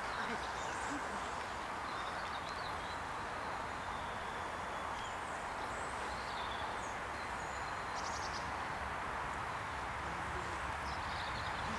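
Small birds chirping faintly and intermittently over a steady outdoor background hiss.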